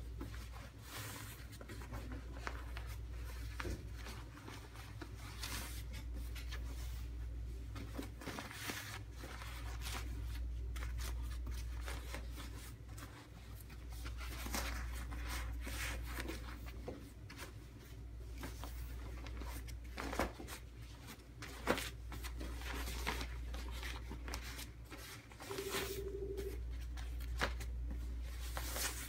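Rustling and crinkling of a blue surgical gown and a paper-like wrap sheet being folded and smoothed by hand, in irregular scratchy bursts with a couple of sharper clicks, over a steady low hum.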